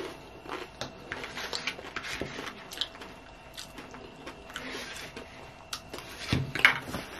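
Close-up eating sounds: wet chewing and lip smacks of cheesy nachos, with a plastic fork scraping and tapping a paper plate. About six seconds in comes a louder bite taken off the fork.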